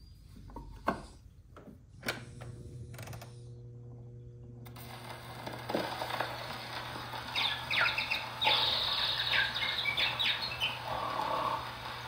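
78 rpm shellac record played on a Victrola 8-30X: a few handling clicks as the disc is set down and the reproducer needle lowered, then scratchy surface hiss, and from about halfway in, chirping bird calls recorded on the disc.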